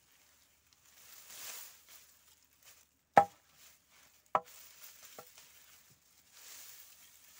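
Machete chopping into the root end of a bundle of lemongrass stalks lying on a wooden plank: two sharp chops about a second apart, then a lighter third. Dry stalks rustle as they are handled before and after.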